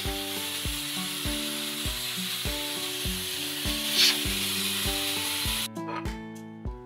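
Food sizzling in a cooking pot: a steady hiss that swells at the start and again about four seconds in, then cuts off abruptly near the end. Background music with a steady beat plays underneath.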